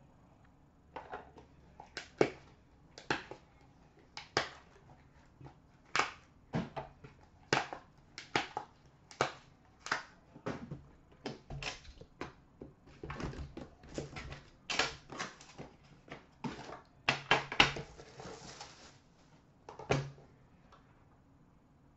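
Irregular clicks, taps and knocks of hockey card boxes and a metal card tin being handled and set down on a glass display counter, some in quick clusters, with a brief rustle of packaging near the end.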